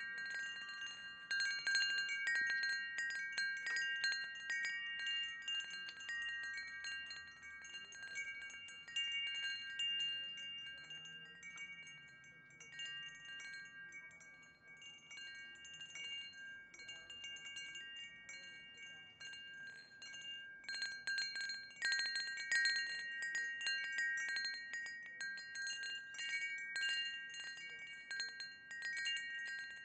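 Wind chimes ringing, struck irregularly in clusters, with several tones overlapping and ringing on. The strikes thin out and quieten about halfway through, then pick up again about two-thirds of the way in.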